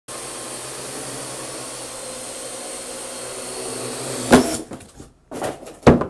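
Parrot AR.Drone 2.0 quadcopter's four rotors buzzing steadily, cut off about four seconds in by a loud crash, the drone hitting something. Scattered clatter and a second loud thump follow just before the end.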